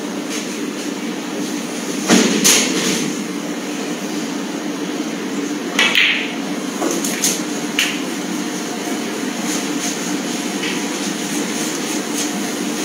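Snooker balls clicking: two sharp knocks about two seconds in, a louder ringing click about six seconds in, and a few lighter clicks after it, over a steady low hum of the hall.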